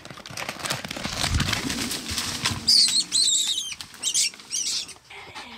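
A lurcher's scuffle with a rabbit in wet stubble and undergrowth: a rapid rustling and thudding for about two and a half seconds, then several high, wavering squeals from the caught rabbit.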